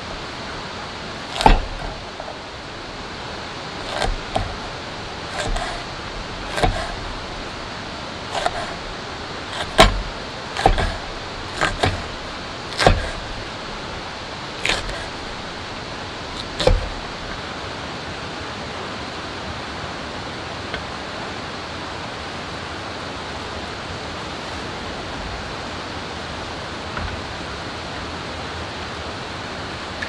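Small hatchet chopping garlic cloves and a green chilli on a wooden cutting board: a dozen or so sharp, irregular knocks, stopping after about 17 seconds. Behind them a steady hiss of rain continues.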